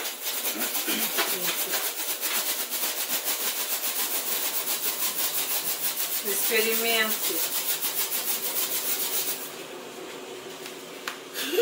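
Rubber balloon rubbed fast back and forth on a child's hair, an even rhythmic rubbing at about seven strokes a second that stops near the end. The rubbing charges the balloon with static electricity.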